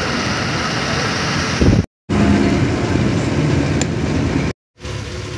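Sleeper coach's engine running with road noise as the bus moves. The sound cuts out completely twice, briefly, at about two seconds and again near the end; after the second cut the engine hum is steadier.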